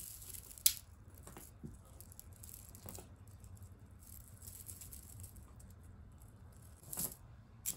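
Faint clicking and light rattling of a faux pearl necklace being handled, with one sharper click under a second in and two more near the end.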